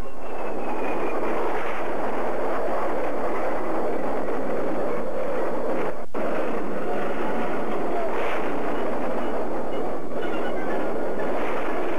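Steady jet-engine roar of a VTOL transport aircraft in flight, as a TV sound effect, with a single sharp click about halfway through.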